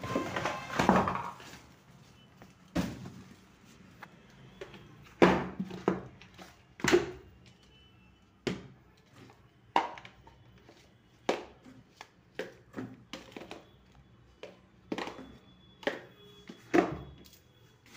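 Plastic supplement tubs being handled and set down on a tiled floor: a string of irregular knocks and clunks, about one a second. The first second or so is a burst of rustling packaging.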